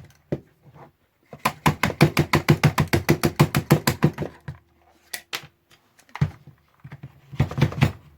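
Hand tool working on the stuck radio chassis: a quick run of sharp clicks, about nine a second, for a few seconds, then a few single knocks and a short cluster of knocks near the end.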